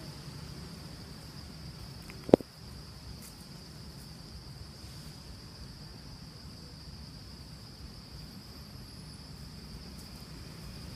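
Steady high-pitched drone of insects, over a low outdoor rumble, with one sharp click about two seconds in.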